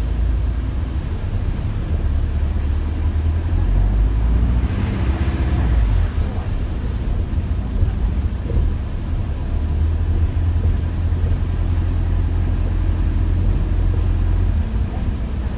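Interior sound of an Alexander Dennis Enviro400H double-decker bus with BAE Systems hybrid drive under way and driven hard: a heavy, steady low rumble from the drivetrain and road. About four to six seconds in, a pitched whine rises and falls over it.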